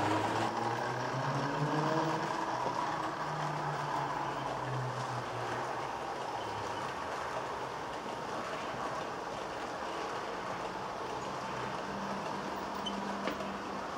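Model train running on the layout's track: the locomotive's small electric motor hums, rising in pitch over the first couple of seconds, over the steady running noise of the coaches' wheels on the rails.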